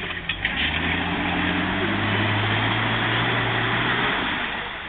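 Off-road SUV's engine revving up and held under load as it pushes through deep muddy water, then easing off near the end.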